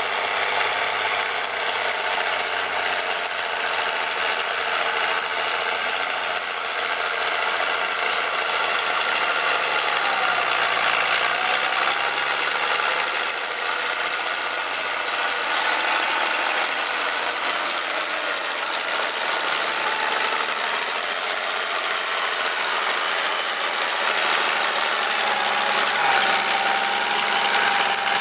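Case IH 956 XL tractor's six-cylinder diesel engine working under heavy load, pulling a plough through mud, with mechanical rattling. The engine note dips and recovers about a third of the way in and shifts again near the end.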